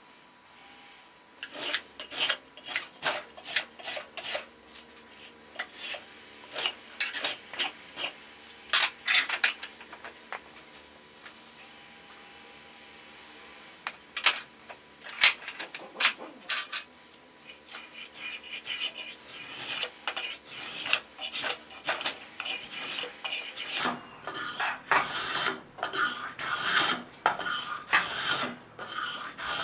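Repeated scraping strokes of a hand tool shaping an ash hammer handle, in irregular runs of about one or two strokes a second, with a lull about ten seconds in.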